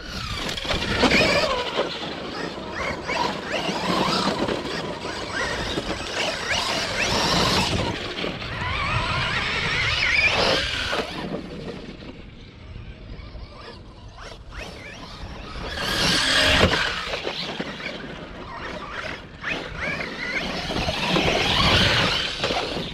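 Losi Hammer Rey 1/10-scale 4WD RC rock racer driving hard on loose dirt: its brushless electric motor whines, rising and falling in pitch as the truck accelerates and lets off, with tires scrabbling and throwing gravel. It swells loudest over the first ten seconds, again about sixteen seconds in, and near the end.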